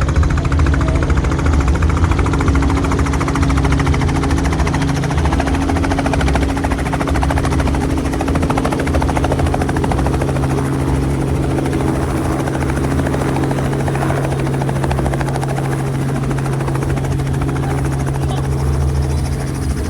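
Helicopter running close by: its rotor blades chop in a fast, steady beat over a steady engine hum.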